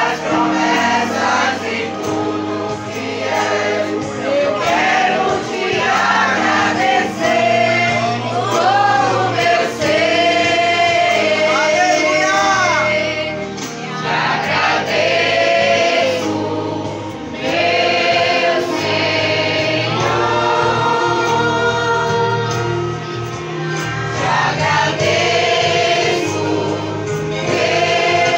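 Mixed choir of children and young people singing a gospel hymn together, accompanied by a strummed acoustic guitar, with congregation voices joining in.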